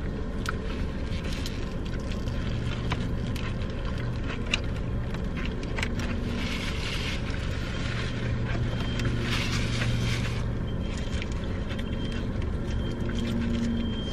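Steady low hum of a car running while parked, heard from inside the cabin, with small clicks and rustles of paper food wrappers and napkins as two people eat; the rustling comes in two short spells around the middle.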